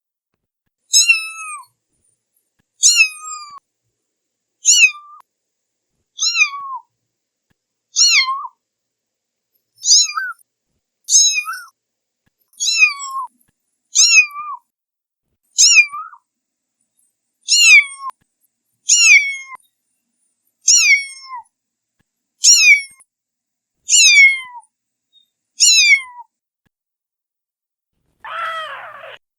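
A cat meowing over and over: about sixteen short, high-pitched meows, each falling in pitch, every second and a half to two seconds. Near the end comes a different, rougher and lower meow.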